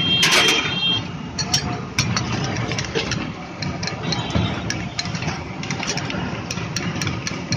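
Flat metal spatula clacking and scraping on a large flat tawa as pav bhaji is mashed and spread, in irregular sharp taps several times a second. Under it runs a steady low rumble, and a louder, shrill sound comes in the first second.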